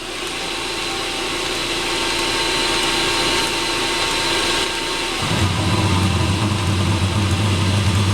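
Eberspacher D1L diesel heater being restarted: its fan spins up with a steady whir, and about five seconds in a louder, deeper steady hum joins.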